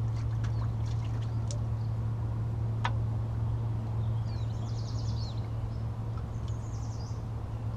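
Birds chirping, with two short high trills about four and six seconds in, over a steady low drone and a few faint ticks.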